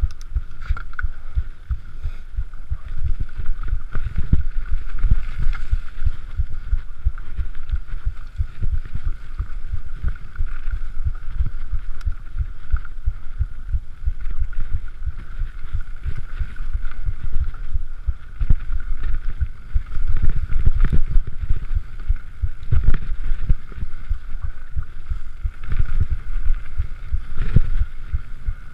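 Mountain bike ridden fast down a rough forest trail, picked up by a body-worn action camera: a dense, irregular rumble of knocks and rattles from the bike over the bumpy ground, mixed with wind buffeting on the microphone. A steady thin high tone runs above it.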